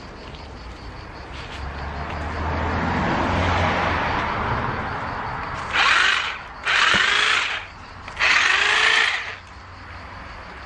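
Corded electric hedge trimmer cutting weeds: it runs more quietly through the first half, then is run in three short loud bursts near the end, each starting with a rising whine as the motor spins up.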